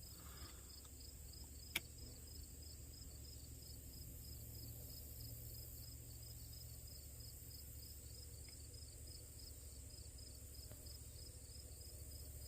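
Insects chirping faintly in a steady, even pulse, about three chirps a second, with a single small click nearly two seconds in.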